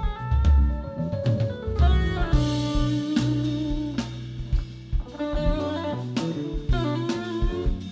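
Live band playing an instrumental passage: electric guitar, electric bass, keyboards and drum kit, with held and moving melodic notes over a steady bass and drum groove.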